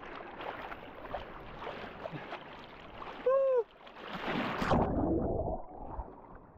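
Sea water sloshing and splashing around a person standing chest-deep in the sea, with a louder splash about four seconds in as water pours over his head and face. A short pitched sound with a falling-then-rising arc is heard about three seconds in, and after the splash the sound turns muffled, as with water over the microphone.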